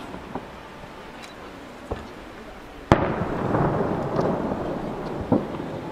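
Aerial firework shells bursting. A few faint pops come first, then a loud boom about three seconds in that trails off into a long echoing rumble, and another sharp bang near the end.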